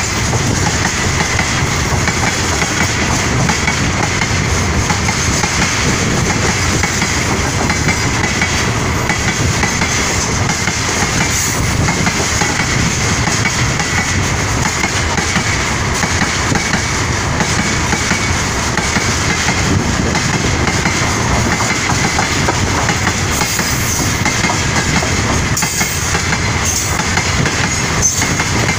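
Freight train wagons, open gondolas and tank cars, rolling past at close range: a loud, steady rumble and rattle of steel wheels on the rails, with a faint steady high ringing running through it.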